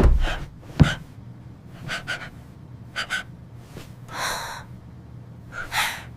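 A sharp knock, then a second one under a second later, followed by several short breathy gasps and breaths, one drawn out a little longer, over a low steady hum.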